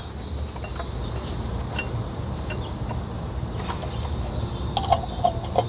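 Steady high chirring of insects, with a pulsing, repeating call joining about three and a half seconds in. A few light clicks come near the end.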